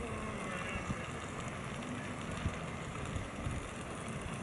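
Campfire burning under a small cooking pan, a steady low rumble with a couple of sharp crackling pops.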